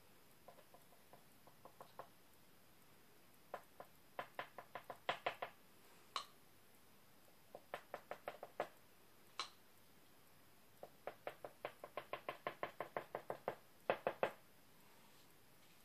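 A thin wooden stick tapping on a painted tray, dabbing purple paint on in quick runs of light taps, about four a second, with a couple of sharper single clicks between the runs.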